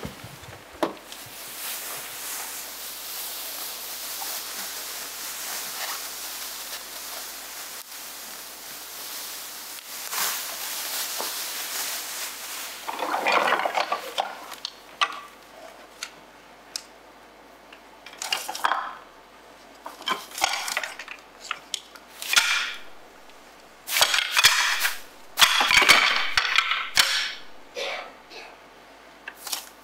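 Clear plastic sheeting crinkling and rustling as it is handled and pulled off a suitcase. At first it is a steady crackle, then from about halfway it comes in louder, irregular bursts.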